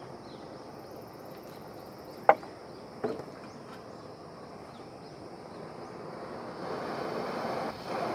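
Outdoor ambience: a steady low rush with faint chirps, two sharp clacks about two and three seconds in, and a louder rushing noise building near the end.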